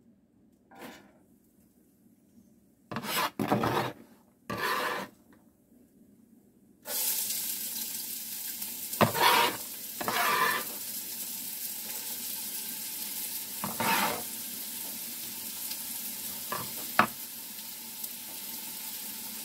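A few short scrapes of chopped onion being gathered on a plastic cutting board. About seven seconds in, the onion hits the hot fat in the pot and starts sizzling suddenly, then fries steadily, with several scrapes and clinks of a utensil against the pot.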